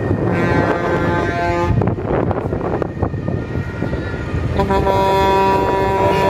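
Vehicle horns honking in a protest convoy: a blast of about a second early on, then a long steady blast starting about four and a half seconds in. Engine rumble and wind noise sit underneath.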